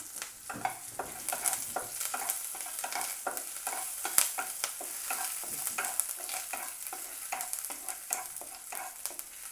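Hot oil sizzling in a pan with garlic, green chilli and curry leaves in a tempering, while a spatula stirs, scraping and clicking against the pan many times.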